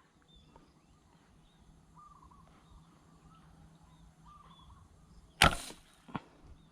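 A fish-shooting slingshot fires about five seconds in, a sharp snap and whoosh of the released arrow, followed a moment later by a short smack as the arrow hits the water. Faint chirping calls carry on in the background.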